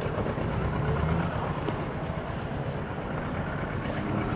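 Kawasaki ER-6f's 650 cc parallel-twin engine idling steadily.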